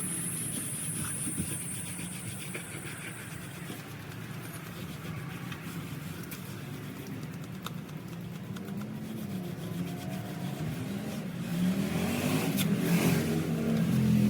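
The 11-horsepower gasoline engine of a 3,200 PSI pressure washer running steadily, with a high hiss over it for the first few seconds. About eleven and a half seconds in the sound grows louder and the engine's pitch bends up and down.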